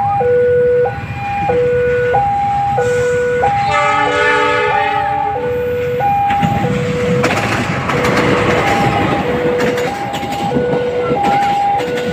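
Level-crossing warning alarm sounding two alternating tones, low and high, about one change every two-thirds of a second. About four seconds in, a train's chord horn sounds for roughly a second. From about six and a half seconds, the rushing rumble of a passenger train passing close rises under the alarm.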